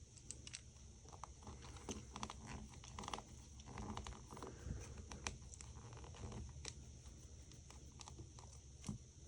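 Faint, irregular clicks, taps and brief scrapes of small hand tools working on the inside of an iPhone 5 while a bracket is being taken off.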